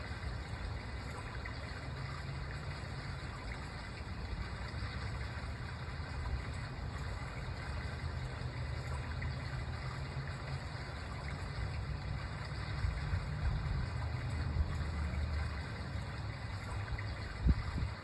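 Outdoor park ambience dominated by a steady low rumble, with one sharp knock near the end.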